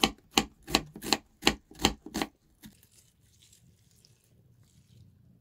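Kitchen knife slicing an onion on a wooden cutting board: about seven sharp knocks of the blade on the board, a little under three a second, stopping after two seconds or so. Then only faint soft sounds as the onion slices are scattered into a cast-iron frying pan.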